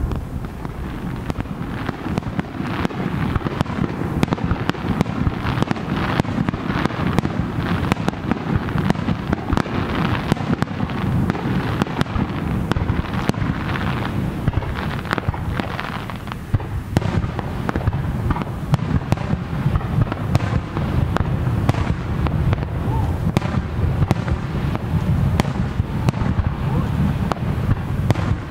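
Aerial fireworks shells bursting in quick succession, with a continuous rattle of crackling and popping between the louder bangs.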